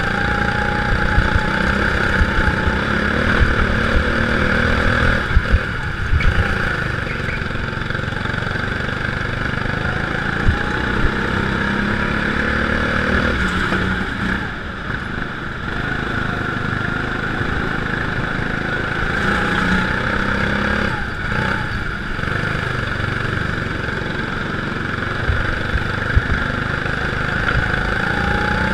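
Go-kart engine running under load through a lap, its pitch rising and falling as the kart accelerates out of corners and backs off into them, with a steady rushing noise on the mounted camera and a few brief sharp knocks.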